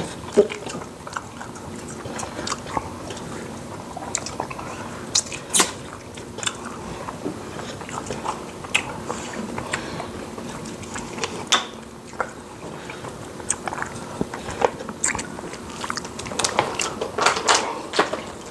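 Close-miked eating sounds: chewing and wet mouth smacks, with many short, sharp clicks scattered irregularly, growing busier near the end.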